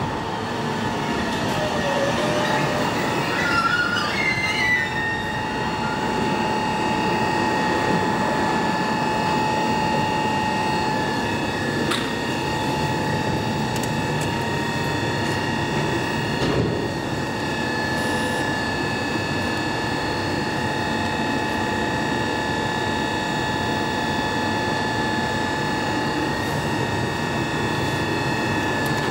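Electric commuter train pulling into the station: a falling motor whine, then wheel squeal for a couple of seconds about three seconds in. A steady high whine follows and runs on while the train stands at the platform.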